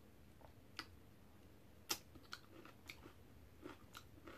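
Faint chewing of crunchy cabbage kimchi: half a dozen short, crisp clicks and crunches, the sharpest about two seconds in.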